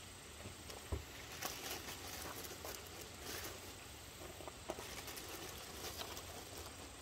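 Light rustling of a plastic bread bag and soft handling sounds as slices of white bread are taken out and laid down, with a short thump about a second in.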